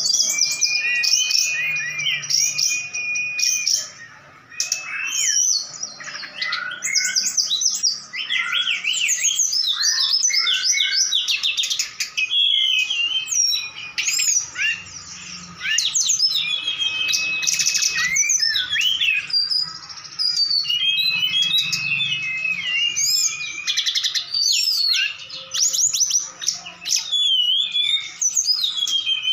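Caged brown-chested jungle flycatcher and hill blue flycatcher singing against each other in an almost unbroken stream of clear whistles and rapid chattering phrases. A few long held whistles run through it, with a short lull about four seconds in.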